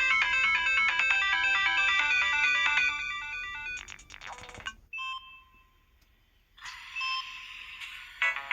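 MS700 mobile phone ringtones playing: a busy melody that ends in a quick run of notes about five seconds in, a brief near-silent gap, then the next ringtone starting with a swell of tones and quick notes near the end.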